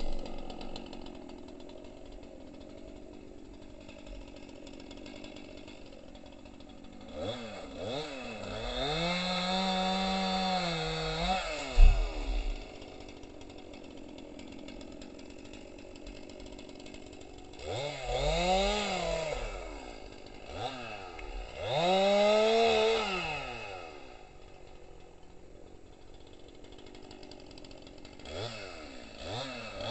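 A chainsaw out of sight revving up in four bursts, each rising in pitch, holding and dropping back, the longest about four seconds, with quieter gaps between.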